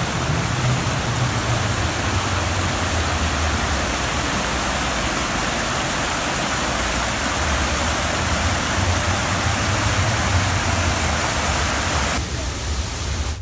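Waterfall and creek water rushing: a loud, steady wash of falling water with a low rumble underneath. The highest part of the hiss drops away near the end.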